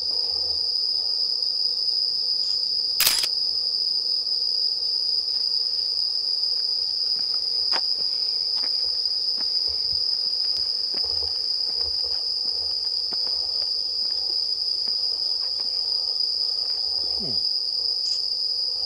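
Steady, high-pitched chorus of night insects. A single sharp click comes about three seconds in, with a few faint taps scattered through.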